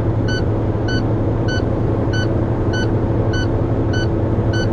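Truck's low-air-pressure warning alarm beeping evenly, about one and a half beeps a second, over the diesel engine held at about 1200 rpm while the air compressor builds brake pressure. The alarm means the air pressure is still below 60 PSI.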